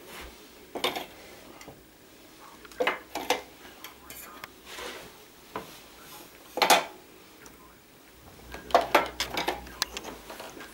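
Small stainless steel food bowls clinking and knocking as they are set down one at a time into the holes of a wooden feeding board. The loudest clink comes about two-thirds through, and a quick run of clinks follows near the end.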